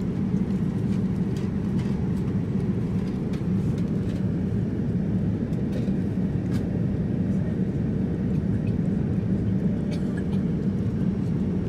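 Steady low rushing cabin noise of a Boeing 787-9 airliner in flight, with a few faint light clicks scattered through it.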